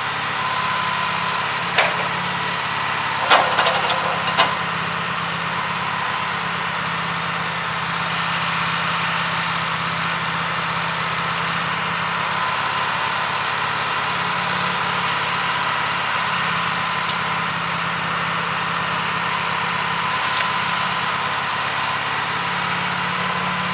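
Wood-Mizer LT15 Go sawmill's engine idling steadily while it warms up, with a few light clicks in the first few seconds and one more near the end.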